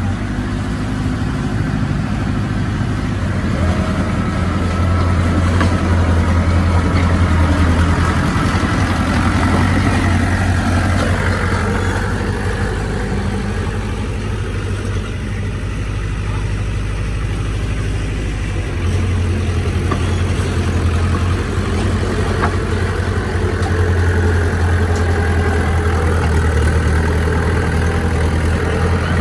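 Heavy diesel engine of earthmoving machinery running steadily with a deep drone. The engine swells under load and eases back over stretches of several seconds.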